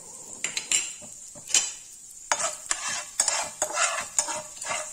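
A utensil knocking, then scraping and stirring in a nonstick frying pan, with strokes about twice a second from about two seconds in. Under it is the light sizzle of a tempering of mustard seeds, curry leaves and dried red chillies frying in oil on low flame, with chilli powder and asafoetida being stirred in.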